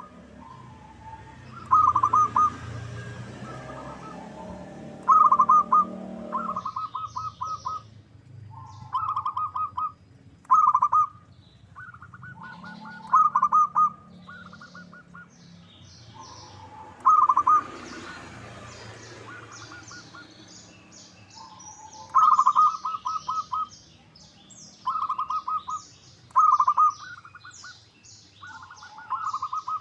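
Zebra dove (perkutut) singing: a dozen or so short phrases of quick staccato cooing notes, repeated every few seconds. Smaller birds chirp higher behind it through the second half.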